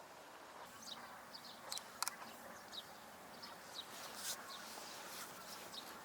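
Small birds chirping: scattered short, high notes that slide downward, over a faint outdoor background, with a couple of sharp clicks about two seconds in.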